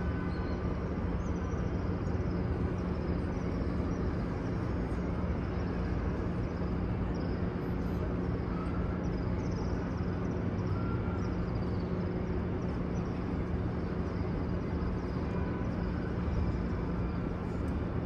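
Steady ambient noise of a vast prayer congregation while the prayer is in a silent pause, with a constant low hum underneath and faint short high chirps now and then.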